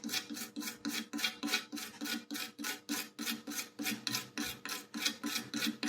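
A brush scrubbing back and forth over a circuit board, cleaning around freshly soldered repair wires. The strokes are even and scratchy, about four a second.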